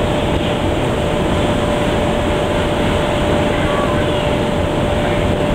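Steady noise of a ship under way: an even engine drone with a constant mid-pitched hum running through it, and rushing noise from the passage through the water.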